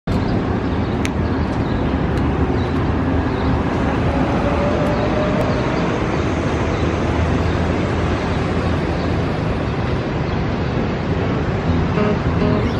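Steady city street traffic noise, an even rumble of passing vehicles, with music starting near the end.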